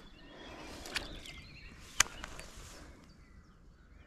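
Quiet outdoor ambience with faint bird calls, broken by two sharp clicks about a second apart, the second the louder.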